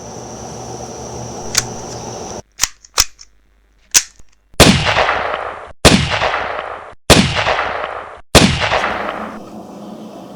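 A pistol firing four shots, about a second and a quarter apart, each ringing out and fading. A few fainter clicks come just before.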